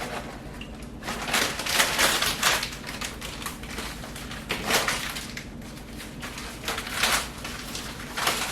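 Plastic bag of dry penne pasta crinkling in irregular bursts as it is handled and emptied into the pot.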